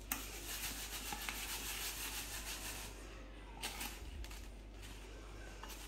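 Soft, gritty rustling of breadcrumbs as a batter-coated arancino is rolled by hand in a plastic tub of breadcrumbs. The rubbing is strongest for the first three seconds, with one brief scrape a little past halfway, then fainter.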